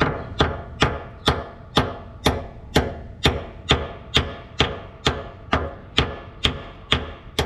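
Steady hammer blows on metal, about two a second, each with a short ring: a hammer driving a pin out of a Mercury 60 hp outboard's power tilt and trim unit.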